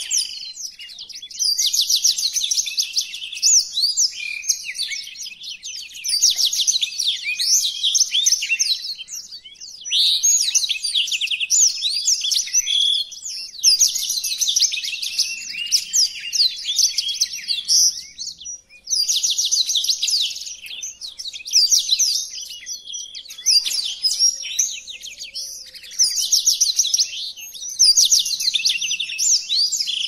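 Black-throated canary (blackthroat) singing: a long, fast, high-pitched twittering song of rapid trills and chirps, in phrases of a second or two with short breaks between them.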